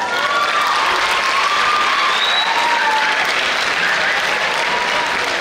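Audience applauding steadily in a large hall, with a few high whoops gliding in pitch over the clapping.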